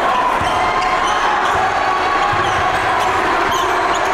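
Basketball dribbled on a hardwood gym floor, thudding at irregular intervals, over steady crowd noise in a large gym.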